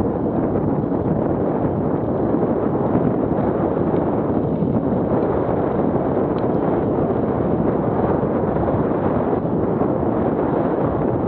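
Wind buffeting an action camera's microphone as a mountain bike rides fast, mixed with the tyres rumbling over a rutted dirt track; a steady, unbroken rush.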